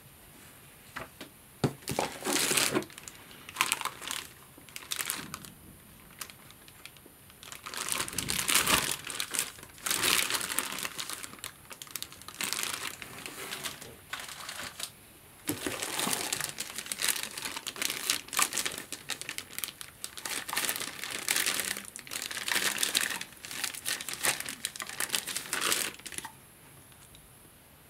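Clear plastic packaging bags crinkling and rustling in irregular bursts as vacuum cleaner parts are unwrapped and lifted out of their cardboard box, stopping near the end.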